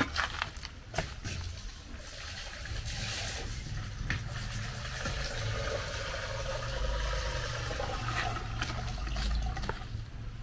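Water running steadily into a container, after a couple of knocks near the start.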